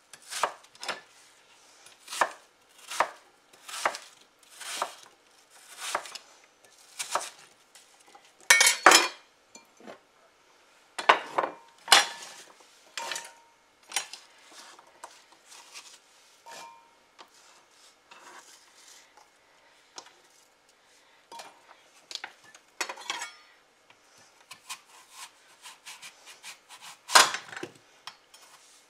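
Chef's knife chopping peeled apple on a wooden cutting board: evenly spaced knife strikes, a little over one a second, with a few louder clattering knocks about nine and twelve seconds in, sparser knocks after, and steady chopping again near the end.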